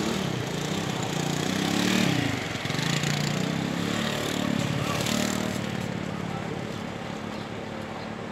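Dromedary camel's low grumbling call, wavering up and down in pitch as a boy climbs onto its back while it lies saddled, dying down after about five seconds.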